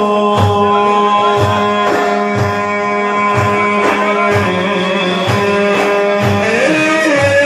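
Middle Eastern instrumental interlude between sung lines of Islamic praise song. Held melodic notes ride over a steady drum beat.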